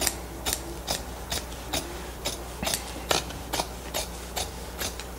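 Sharp scissors snipping through thick wool upholstery fabric, trimming it close, in a steady run of crisp snips about two to three a second.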